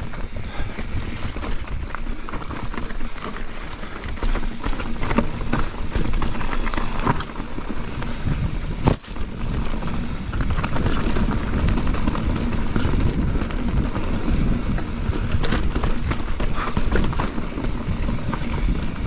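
Mountain bike riding fast down a dirt trail: wind rushing over the camera microphone, tyres rolling and crunching over dirt and rock, and a constant clatter of chain and frame over bumps, with a sharp knock about nine seconds in.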